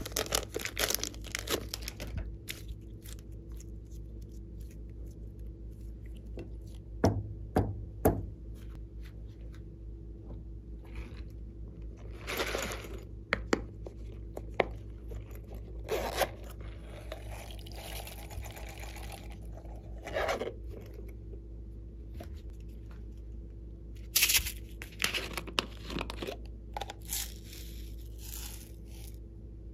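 Glossy slime being mixed and worked by hand, giving irregular sticky crackles, pops and short tearing sounds as it is stretched and pressed, with pauses between handlings.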